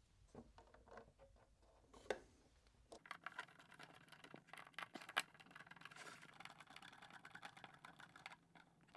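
3D-printed plastic case parts being handled and fitted together: light clicks and scraping, with one sharper click about two seconds in. A denser run of small clicks and scrapes over a faint steady hum starts about three seconds in.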